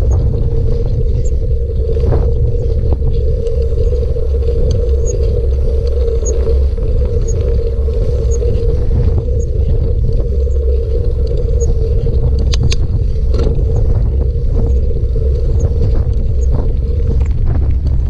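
Bicycle in motion, a steady low rumble of wind on the microphone and tyres rolling, with a steady hum over it. A faint tick comes about once a second, and there are scattered short knocks and scrapes.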